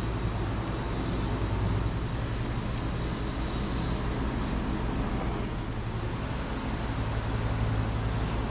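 A steady low mechanical hum with a fine, rapid flutter.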